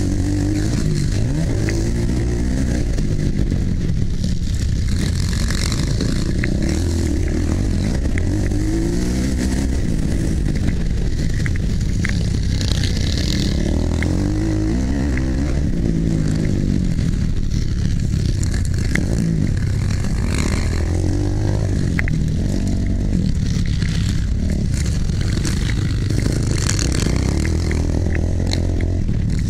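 Motocross dirt bike engine heard close up, revving up and dropping back again and again as the rider accelerates, shifts and brakes around the track, with wind rush and clattering from the bike over the rough ground.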